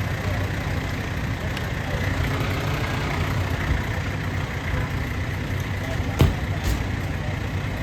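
Fire truck's diesel engine running steadily at low speed, with a single sharp click about six seconds in.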